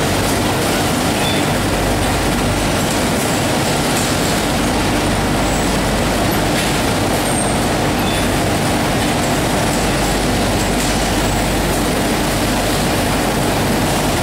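Girbau DRF duvet-cover feeder and the industrial laundry machinery around it running: a steady, loud mechanical rush and hum that never lets up.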